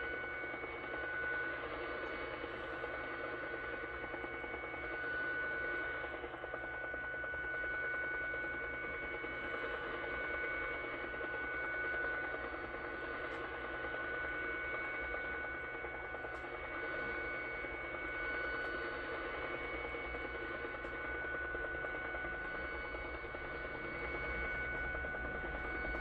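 Shortwave signal on 12220 kHz received in AM on a Yaesu FTdx10: a set of steady tones over a rapid pulsing background that sounds like the Russian Woodpecker radar, with band noise. Its origin is unknown, perhaps a jammer or some other utility signal.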